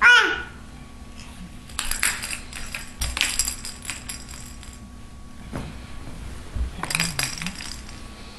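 A baby gives one short, loud squeal that falls in pitch. Then the baby's plastic toys rattle and clatter in three bouts, about two seconds in, three to four seconds in and near seven seconds.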